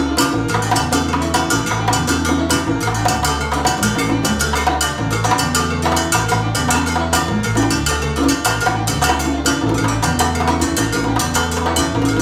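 Salsa music played live by a small band: congas played in a steady groove over a repeating bass line.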